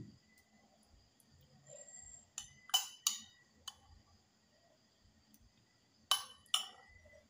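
Sharp clinks against glass tableware: three quick ones a little over two seconds in, a lighter one shortly after, and two more about a second from the end.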